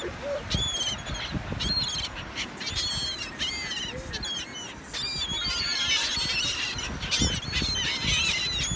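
A flock of birds calling over one another: many short, high, arched squawks, coming thickest in the second half.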